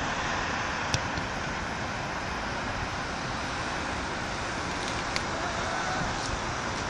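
Steady hiss of distant road traffic, with a couple of faint sharp clicks about a second in and again about five seconds in.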